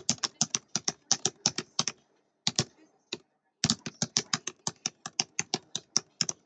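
Typing on a computer keyboard: a fast run of keystrokes, about six a second, a break of about a second and a half in the middle with a few single taps, then a second fast run.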